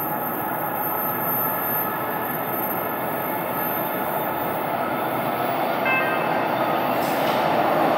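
A Bombardier Toronto Rocket subway train approaching through the tunnel into an underground station: a steady rumble that grows slowly louder, with a few faint brief high tones about six seconds in.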